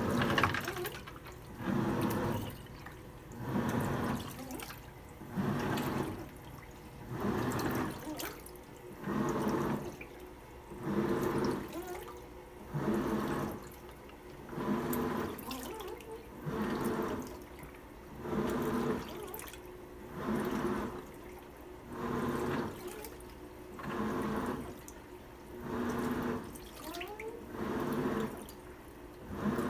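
Washing machine in its wash cycle: water and laundry sloshing in the drum in regular surges about every two seconds, as the drum turns one way and then the other.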